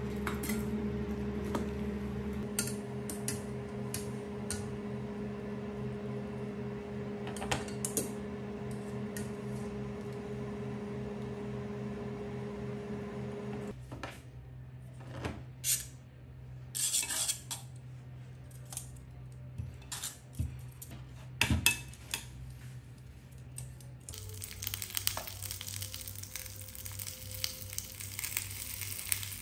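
Kitchen work: a steady appliance hum with scattered clinks of dishes and utensils for about the first half, then sharper clatter of pots and cutlery. Near the end, food starts sizzling in a hot pan.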